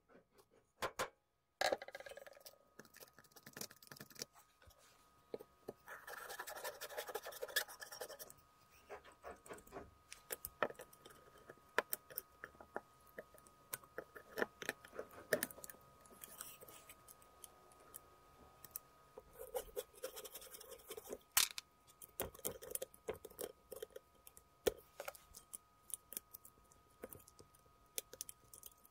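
Screwdrivers clicking and scraping against the aluminium housing of a Makita UT2221 power mixer as its carbon-brush caps are worked loose: many small taps and clicks, with a longer stretch of scraping about six seconds in.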